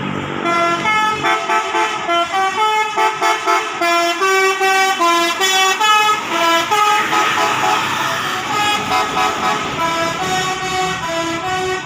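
Bus 'telolet' horn, a multi-tone air horn, playing a quick tune of short notes that step up and down in pitch, with a brief rush of noise about seven seconds in.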